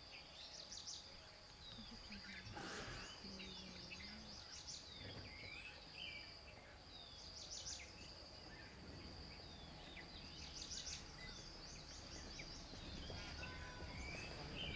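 Faint forest ambience: small birds chirping and trilling again and again, over a steady high-pitched insect drone that breaks off now and then.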